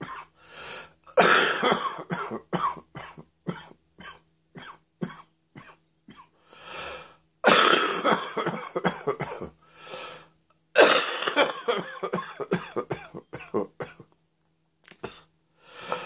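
A person coughing in repeated fits, a rattling cough. There are three long loud bouts, about a second in, halfway through and about eleven seconds in, with shorter single coughs between them and a brief quiet spell near the end.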